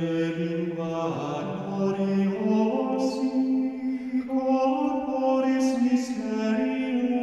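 Slow sung chant: long held notes stepping from one pitch to the next, with sung 's' sounds about three and six seconds in.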